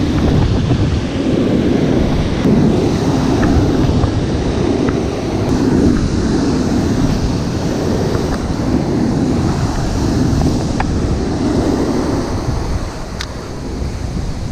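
Strong wind buffeting the microphone over the wash of ocean surf: a dense, low rumbling noise that swells and eases every second or two.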